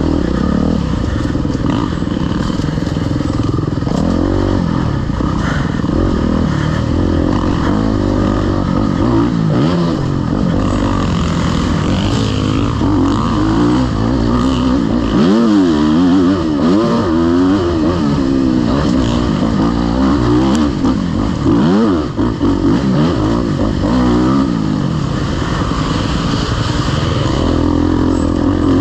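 Off-road dirt bike engine running hard, its pitch rising and falling over and over as the throttle opens and closes, with a brief let-off about three-quarters of the way through.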